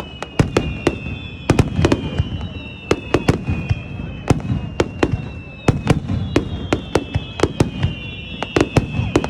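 Fireworks display: sharp bangs, several a second in an irregular barrage, over a low rumble. High whistling tones slowly falling in pitch run alongside.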